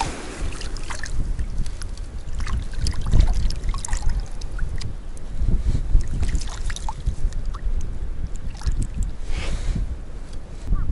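Wind rumbling on the microphone, with scattered small splashes and rustles as a hand dips into shallow seawater.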